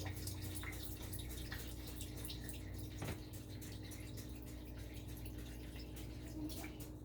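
Cleaning vinegar being poured into a dishwasher: a faint trickle of liquid with irregular drips, over a steady low hum.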